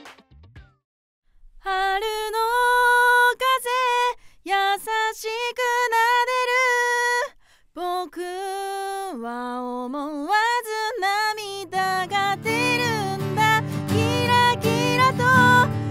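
A woman singing long, held notes alone, recorded through an Audio-Technica AT4050 condenser microphone into an Audient iD14 mkII audio interface as a vocal demo. About twelve seconds in, a low instrumental accompaniment comes in under the voice.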